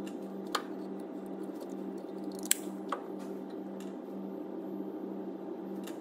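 New front brake pad with its spring clip being pushed into the caliper piston of a MK5 VW Polo: three short, sharp metallic clicks, the loudest about two and a half seconds in, over a steady low hum.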